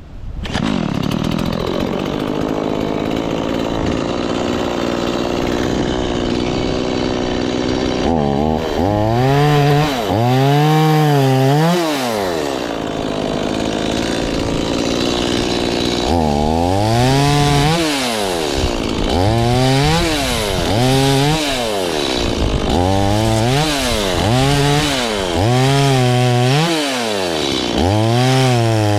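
Chainsaw engine coming in suddenly and running, then revved up and down over and over, its pitch rising and falling about once a second, with steadier stretches between.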